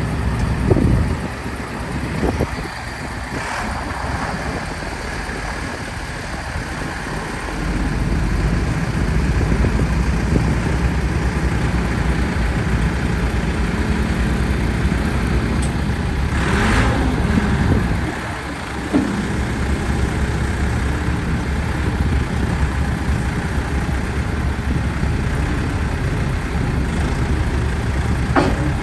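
Cat 416C backhoe loader's four-cylinder diesel engine running steadily. It picks up in level about eight seconds in and drops back about eighteen seconds in, with a short hiss and a few knocks along the way.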